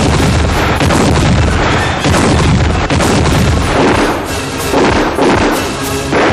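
Artillery fire and shells exploding: a string of heavy booms, several in a few seconds, with music underneath.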